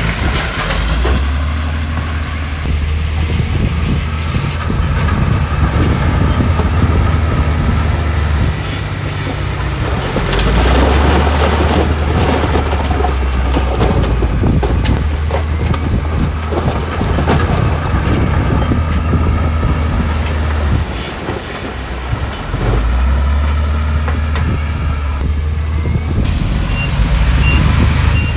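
Heavy diesel earthmoving machinery at work: big engines running and revving up and down under load. Near the end a reversing alarm starts beeping, about one and a half beeps a second.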